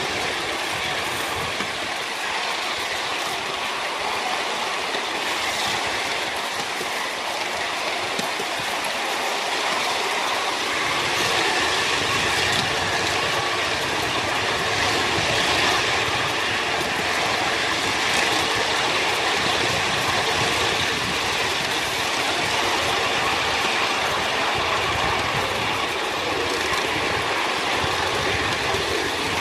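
2.5-inch gauge LBSC Ayesha live-steam locomotive and its riding trolley running along a miniature railway track: a steady running noise of small wheels on the rails, with somewhat more low-end rumble from about a third of the way in.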